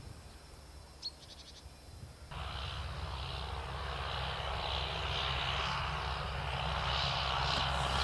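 A steady, distant engine drone with a hiss over it. It starts suddenly about two seconds in and slowly grows louder.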